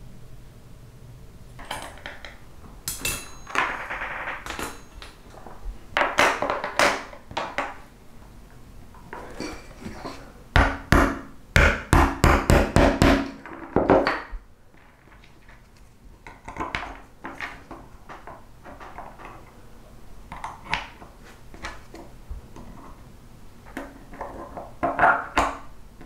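Small metal knife parts (steel liners, brass pins, tools) being handled and set down on a wooden workbench, giving scattered clinks and knocks. About halfway through comes a quick run of about eight sharp taps.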